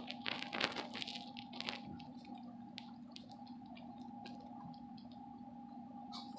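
Kitten lapping ice water from a cup: faint, quick wet clicks, denser in the first couple of seconds and then sparser, over a steady hum.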